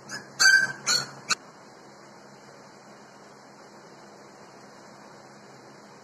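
A young Labrador Retriever puppy yelping three times in quick succession, high-pitched, within the first second and a half, then only a steady hiss.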